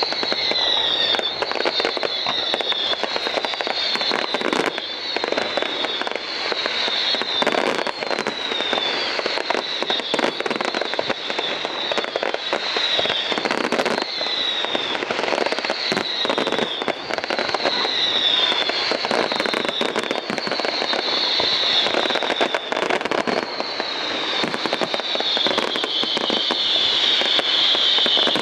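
Fireworks display: a dense, steady string of bangs and crackles, with high whistles that each fall in pitch, about one a second, merging into an almost continuous whistling near the end.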